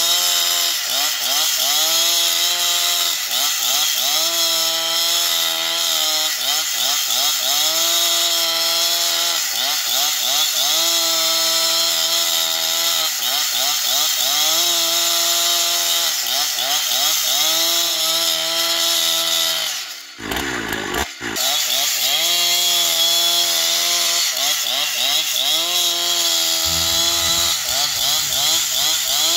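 Husqvarna two-stroke chainsaw at high throttle, ripping lengthwise through a large log. The engine pitch sags under load and recovers every couple of seconds, and the sound falls away briefly once about two-thirds of the way through.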